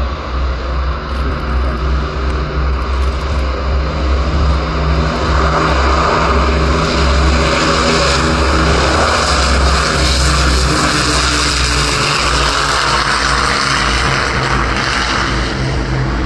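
Avro Lancaster's four Rolls-Royce Merlin V12 piston engines droning steadily with their propellers, the sound swelling through the middle.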